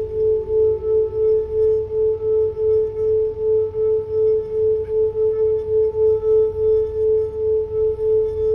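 Crystal singing bowl sung by circling a mallet around its rim: one sustained ringing tone that swells and wavers about four times a second.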